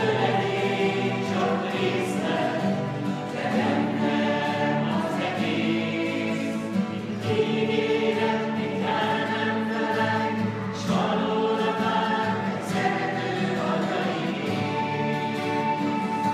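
A small group of voices singing a Hungarian Christmas song to acoustic guitar accompaniment, the sung notes long and held.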